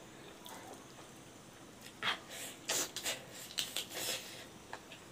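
Close-up eating sounds: a quick run of short wet smacks and chews, starting about two seconds in, as a piece of braised pork trotter skin and meat is eaten by hand.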